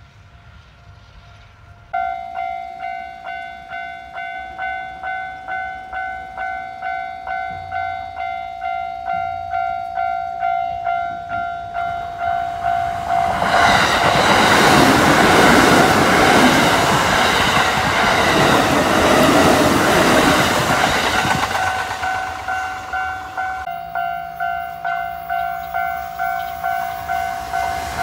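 Japanese railway level-crossing alarm starts about two seconds in, an electronic tone pulsing just under twice a second. From about 14 s to 22 s a Kintetsu electric commuter train passes close by, its wheels running and clattering over the rails above the alarm. The alarm keeps ringing after the train passes, and near the end the noise of another approaching train rises.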